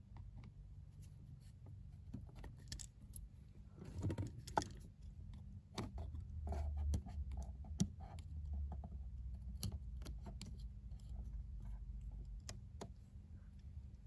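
Scattered small clicks and scrapes of a thin metal pin tool and pick working at the terminals of a plastic ISO speaker connector, trying to push the crimped pins out, with the wires of the harness rustling. A steady low hum runs underneath.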